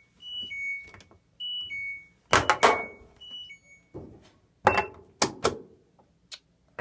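Electronic beeps from an LG top-load washing machine's control panel, alternating between two pitches for the first few seconds, with several loud clunks and knocks about two and a half seconds in and again around five seconds in.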